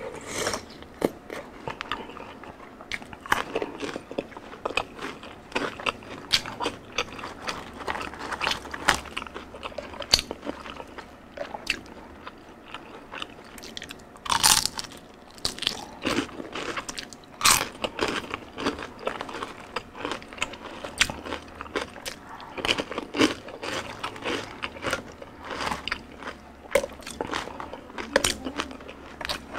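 Biting, crunching and chewing crispy deep-fried street food, with many short crackly crunches and a few sharper ones about halfway through.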